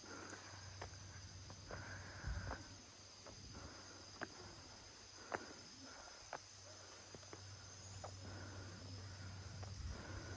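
Footsteps crunching on a gravel path at a walking pace, giving irregular clicks and scuffs about once a second. Behind them, insects drone steadily in two high, even tones.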